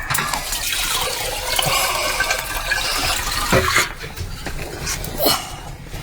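Water rushing or being poured for about four seconds, followed by a couple of sharp knocks.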